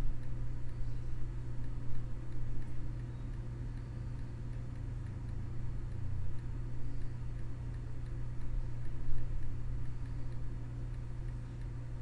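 Faint, evenly spaced ticking, like a clock, over a steady low hum in the room.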